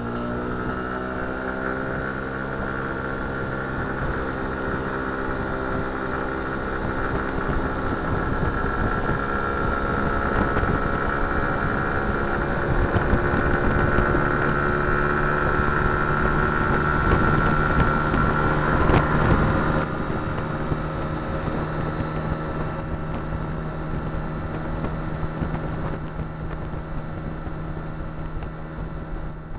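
Kymco Dink Street scooter's engine pulling steadily at road speed with a rush of wind and road noise. It grows louder until about two-thirds of the way through, then the level drops and settles to a lower steady drone.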